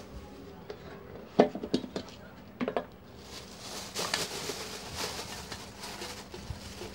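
A stainless steel bowl knocks and clinks a few times as it is picked up, then a black plastic garbage bag rustles and crinkles as vegetable peelings are tipped out of the bowl into it.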